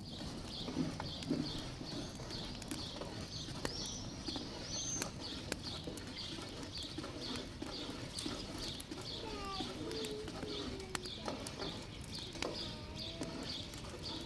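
Birds chirping, one high chirp repeated evenly about three times a second, with a few short higher calls. Scattered sharp crackles come from the wood fire.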